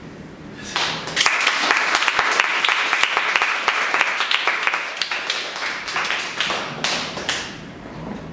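Audience applauding: clapping breaks out about a second in, holds steady, and thins out near the end.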